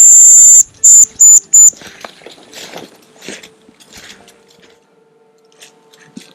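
Hazel grouse decoy whistle blown close: one long, very loud high whistle followed by three short notes, imitating the hazel grouse's call. Faint rustling follows.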